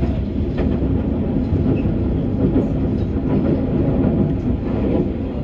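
Commuter train running at speed, heard from inside the passenger car: a steady low rumble of wheels on rail with faint clicks.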